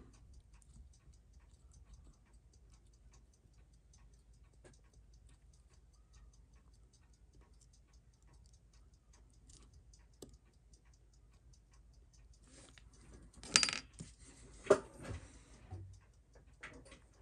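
Faint, quick, even ticking throughout. About thirteen and a half seconds in come two sharp metallic clicks with a short clatter, as the watch movement in its metal holder is handled with tweezers.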